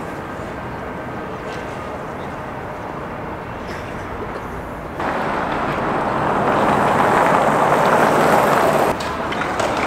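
Outdoor city background noise with traffic. About halfway through it jumps suddenly to a louder rushing hiss that swells, then cuts off sharply about a second before the end.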